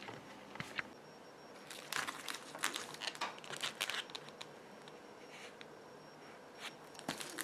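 Faint handling noise: irregular crinkling and light clicks, busiest between about two and four and a half seconds in, with a few more near the end.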